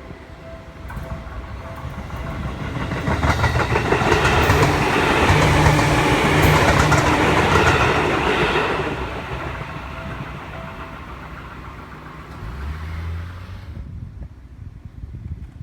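A Seibu Tamagawa Line train passes a level crossing, swelling to a peak a few seconds in and fading away, with wheels clacking over the rail joints. The crossing's warning bell rings throughout and stops a little after the train has gone.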